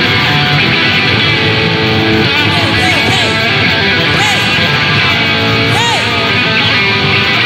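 Live band music driven by electric guitar, with a few high notes that swoop up and back down midway through.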